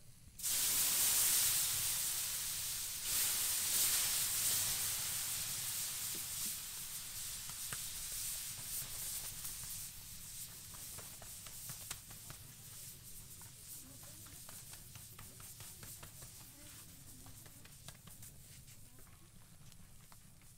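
Dough sizzling on a hot wood-fired saj dome: a hiss that starts suddenly, swells again about three seconds in, then slowly dies down, with small crackles through it.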